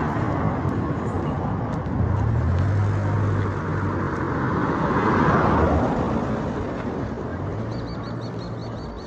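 Roadside traffic: a vehicle's low engine hum, then a vehicle passing close, loudest about five seconds in and fading away, over steady road noise.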